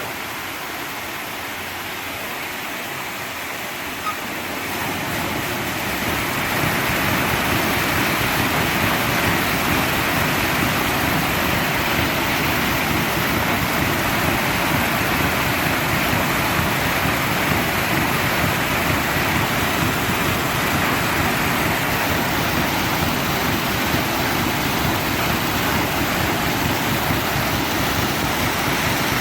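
Water rushing and splashing through the flutter wheel of a water-powered sash sawmill. It swells about five seconds in as the wheel is set running, then carries on steadily.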